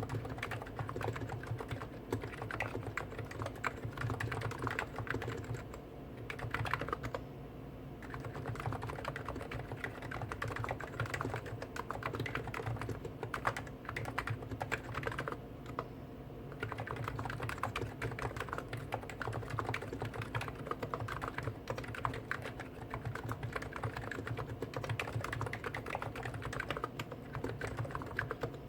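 Continuous fast typing on two Hansung GTune capacitive (non-contact) keyboards at once, a CHF4 Snow White with 50 g switches and a CHF7 OfficeMaster with 55 g switches. It makes a dense patter of key strokes, with short pauses about seven and fifteen seconds in.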